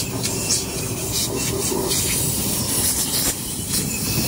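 Irregular scratchy strokes of a hand tool scraping inside a bare truck engine block, over a steady noisy background.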